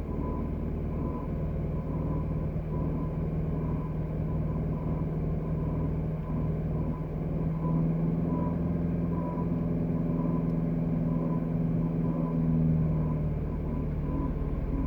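BMW E90 320i engine idling with a grinding noise from the engine bay that appears only with the air conditioning off; the owner suspects the AC compressor bearings. A faint higher tone pulses evenly above the steady engine sound.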